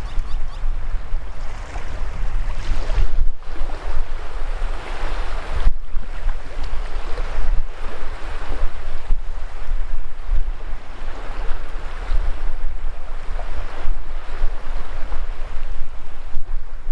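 Shallow surf washing up over sand at the water's edge, swelling and easing every few seconds, with a heavy low wind rumble on the microphone.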